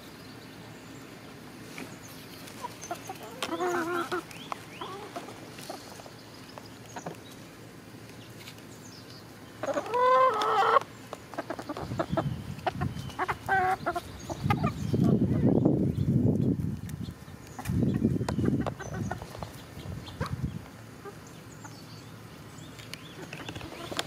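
Chickens clucking as they forage, with short calls now and then and one louder drawn-out call about ten seconds in. Stretches of low rumbling noise come and go in the second half.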